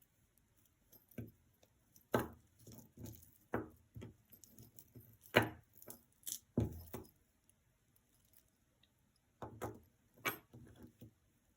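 Costume jewelry clinking and jingling as pieces are handled: several short bursts of metal and bead rattles with sharp clicks, separated by pauses.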